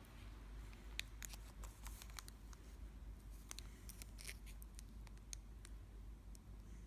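Faint handling noises: scattered small clicks and taps, the sharpest about a second in, as a plastic-wrapped Zippo lighter is turned over in the hands.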